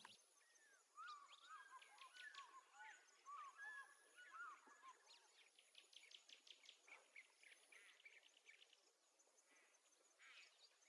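Faint birds chirping and twittering, with quick overlapping chirps for the first few seconds, then only a few scattered calls.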